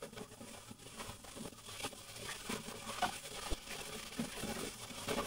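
Pork belly cubes being stirred with a wooden spatula in a hot enamelled pot: scattered light knocks and scrapes of the spatula, over a faint sizzle of the meat frying that grows louder from about two seconds in.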